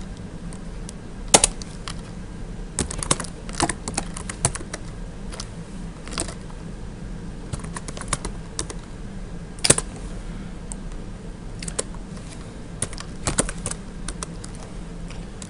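Computer keyboard typing: keys struck irregularly in short quick runs with pauses between, a few strokes louder than the rest. A low steady hum runs underneath.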